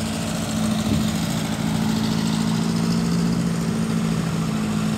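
Classic cars driving slowly past at low speed, their engines making a steady low hum.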